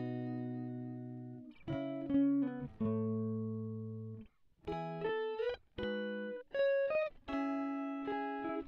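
Background music: a guitar playing held notes and chords that ring and fade, a new one every second or so, with short slides in pitch between some of them.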